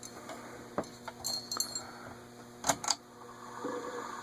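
Casablanca Delta II ceiling fan's K55-type motor running without blades with a steady hum, its stiff bearings freshly loosened with WD-40 and working themselves free. A few sharp clicks and a brief metallic jingle sound over it, and about three and a half seconds in the sound changes and grows slightly louder.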